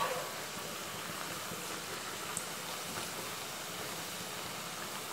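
Hot oil sizzling steadily around thattu vadai discs deep-frying in a kadai, with a light click near the start.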